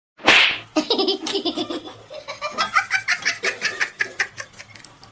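A short loud hiss-like burst, then a person laughing hard in quick repeated bursts for about four seconds.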